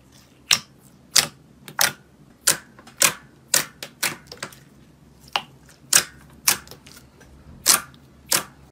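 Clear pink jelly slime being poked and pressed by fingers, giving sharp clicking pops, a dozen or so at roughly two a second.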